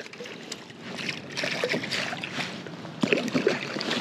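Scattered small taps and knocks with light water sounds as a freshly caught crappie is handled, with a denser cluster of knocks about three seconds in.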